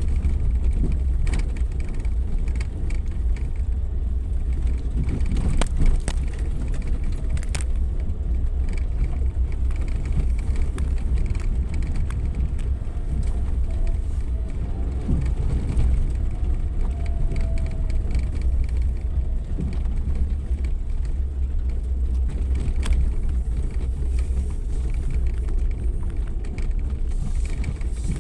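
Suzuki Jimny 4x4 driving off-road: a steady low rumble of engine and drivetrain, with a few sharp knocks and rattles from the rough track, the loudest about six seconds in.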